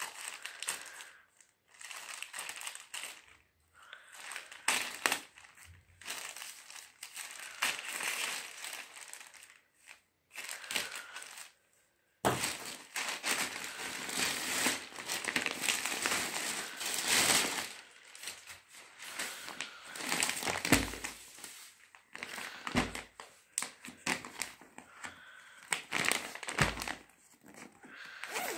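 Plastic packaging crinkling and rustling in irregular bursts as a parcel is unboxed by hand, with a few dull bumps in the last third.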